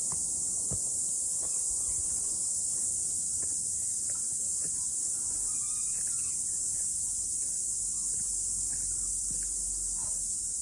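Cicadas singing: a steady, high-pitched, unbroken drone.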